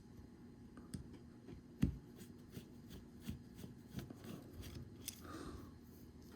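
Small clicks and taps of a Craftsman ratchet being handled and taken apart, with one sharper knock about two seconds in.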